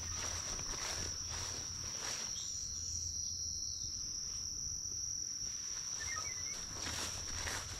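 Insects trilling in one high, unbroken tone, with a few scuffing steps at the start and again near the end.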